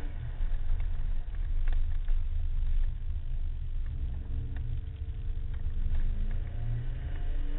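Subaru WRX rally car's turbocharged flat-four engine running hard, heard inside the cabin over heavy road and tyre rumble, its note climbing for a couple of seconds past the middle as the car accelerates out of a corner. A few sharp ticks cut through.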